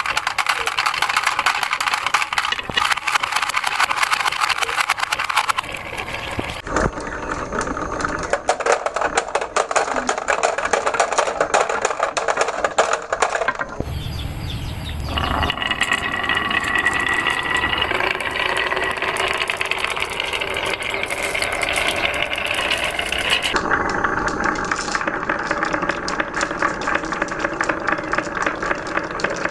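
Marbles rolling and clattering down wooden marble-run tracks: a dense, continuous rattle of rapid clicks. Its character changes abruptly a few times, with a short low rumble about halfway through.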